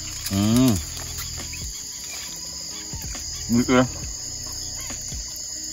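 Crickets chirring in a steady, unbroken high-pitched drone, with a man's short murmur near the start and a spoken "okay" a little past halfway.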